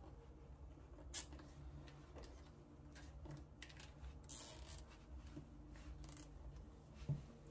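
Faint handling noise of braided audio cables being bundled by hand: soft rubbing and rustling, two sharp clicks about a second in and near the end, and a short scraping hiss around the middle.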